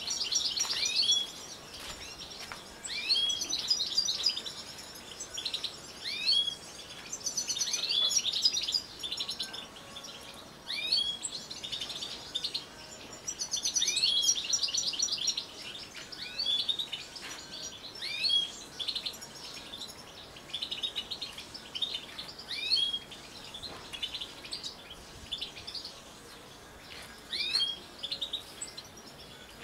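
European goldfinches singing: bursts of fast, tinkling twittering song broken up by short rising call notes, coming every second or so.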